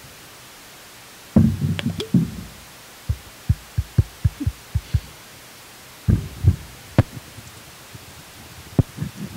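Close-miked drinking and eating noises: a run of low gulps, about four a second, between short bursts of low mouth and handling noise and a few sharp clicks.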